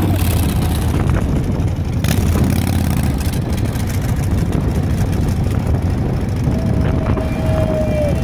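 Road traffic on a bridge: a steady rumble of passing cars' engines and tyres. Near the end a single held tone sounds for about a second and a half.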